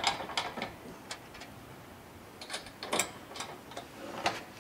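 Scattered light clicks and knocks of a mounting band being shifted and lined up around a deer-feeder barrel by hand, in a few short clusters with quiet gaps between.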